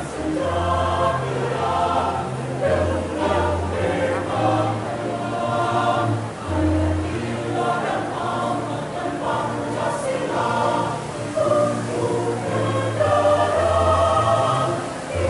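Choir singing a song, with low bass notes held steadily beneath the voices and changing every second or so.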